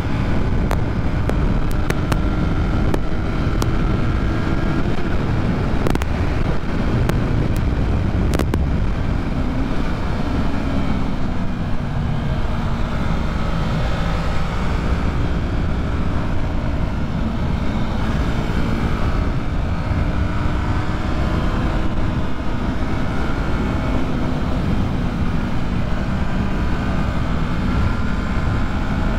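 Yamaha MT-03's parallel-twin engine running hard at highway speed under heavy wind rush; its pitch sags a little around ten seconds in, then holds steady. A couple of sharp clicks come in the first nine seconds.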